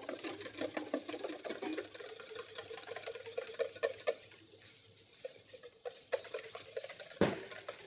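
Wire whip beating egg yolks in a stainless steel bowl: a fast, continuous clicking and scraping of wire against metal as the yolk mixture is whipped thick for hollandaise.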